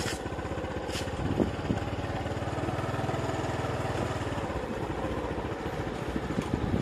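Motorbike engine running steadily while riding along a road, with brief clicks at the start and about a second in.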